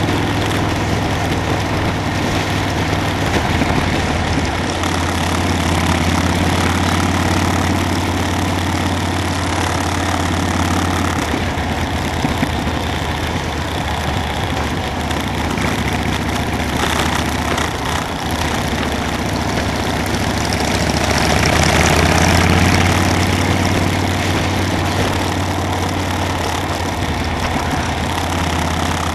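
Motorcycle engine running steadily while riding, a low drone under a broad rushing noise of wind and road.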